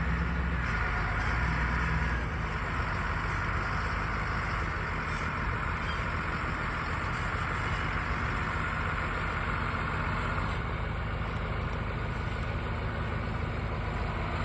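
Heavy diesel harvest machinery running steadily: a low engine drone with a continuous higher whirring hum, the low drone a little stronger for the first couple of seconds.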